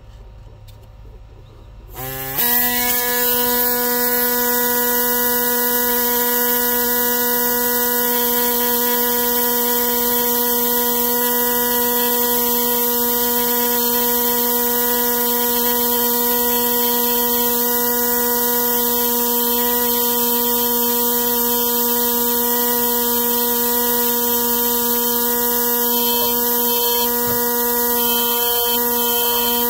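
A handheld power engraving tool of the kind used for fossil preparation switches on suddenly about two seconds in, then buzzes steadily at one even pitch, working stone away from a fossil leaf.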